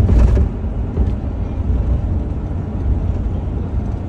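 Steady low road and engine rumble heard from inside a pickup truck's cabin while it drives along the highway. There is a brief louder noise right at the start.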